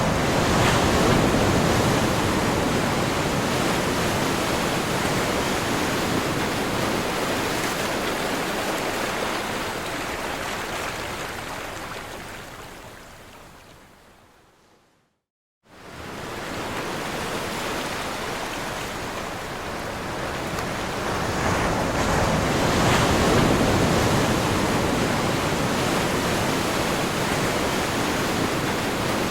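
Crashing ocean surf: a steady wash of water noise that swells and ebbs with the waves. About halfway through it fades out to silence, then cuts back in suddenly, the join between two recordings.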